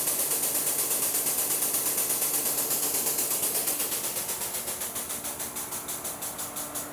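Pump forcing Rim Guard beet-juice ballast through a hose and air-water valve into a compact tractor's rear tire: a fast, even pulsing hiss, about eight pulses a second, that slowly grows quieter.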